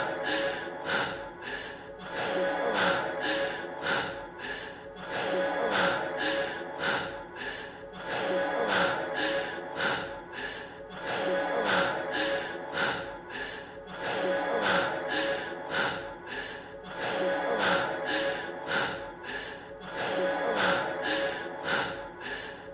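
A man's heavy, fast breathing and gasps, with a steady tone underneath. It is a short clip looped so that the same breaths repeat about every three seconds.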